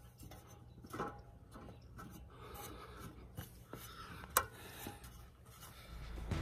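Faint rubbing and scattered soft knocks of someone climbing a metal ladder, hands and shoes working on the rungs, with one sharp knock about four and a half seconds in.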